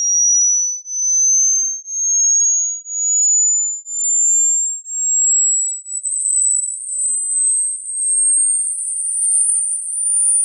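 A pure high-pitched test tone for a hearing age test, rising slowly and steadily in pitch into the very high range where older ears stop hearing it. For the first six seconds it swells and dips in loudness about once a second.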